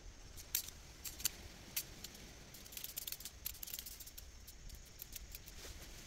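A run of sharp, irregular clicks and light rattles, a few at first and then a dense cluster about halfway through.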